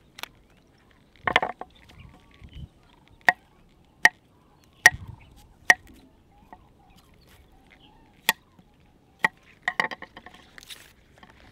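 Sharp knocks of a kitchen utensil, about a dozen, spaced irregularly with short gaps. Two of them come as quick little clusters, one early on and one near the end.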